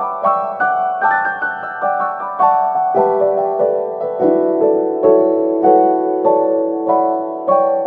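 Background music: a solo piano playing a steady run of notes, about three a second, each fading after it is struck, over a held lower note in the second half.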